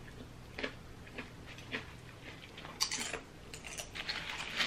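Eating sounds at a table: scattered soft clicks and taps of a fork in a bowl and tortilla chips being handled, with a brief louder crackle about three seconds in.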